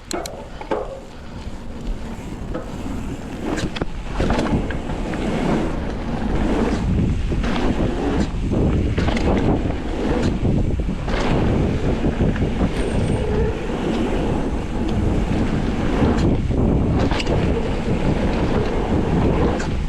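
Wind rushing over the microphone as a mountain bike picks up speed down a jump line, building over the first few seconds. Repeated knocks and rattles come from the bike on the rough trail and the jump landings.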